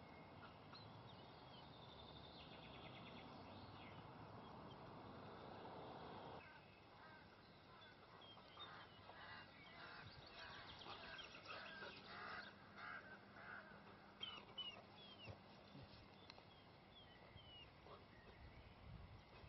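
Faint outdoor quiet with small birds chirping now and then. A soft steady hiss in the first six seconds cuts off abruptly.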